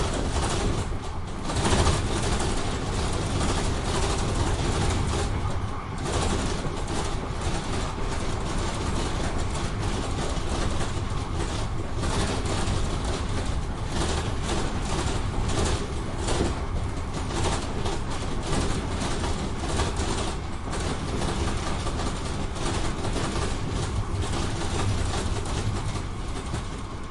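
Tram doors rattling and clattering without pause over the low rumble of the tram in motion, with many irregular knocks from the loose door panels.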